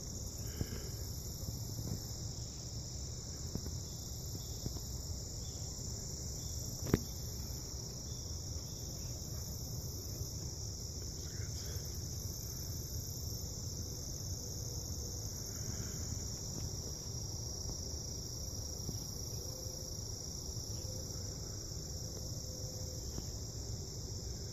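Steady, high-pitched insect chorus of crickets or similar insects, unbroken throughout, over a low rumble. A single sharp click about seven seconds in.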